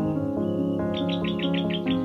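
Background music of held, sustained chords, with a bird chirping a quick run of about seven notes in the second half.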